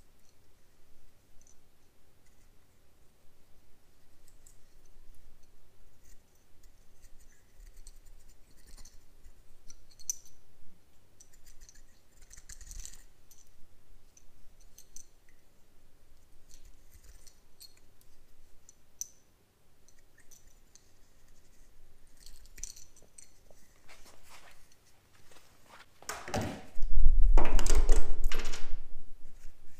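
Utility knife shaving and scraping the edge of a white plastic plate: faint scrapes and small ticks and clicks. Near the end comes a loud clatter of tools being handled on the wooden bench, lasting about three seconds.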